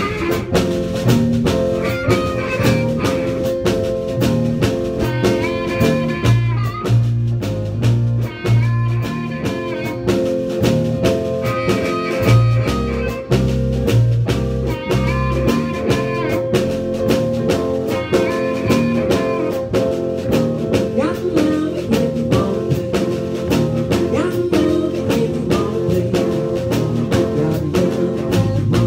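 Live blues band playing: amplified harmonica played into a cupped handheld mic carries the held, bending lead notes over electric guitar, a stepping bass line and a drum kit keeping a steady beat.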